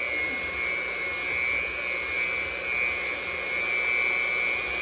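Electric hand mixer running steadily, a constant high motor whine with its beaters whipping pudding mix and milk in a plastic bowl; the pitch lifts slightly near the end.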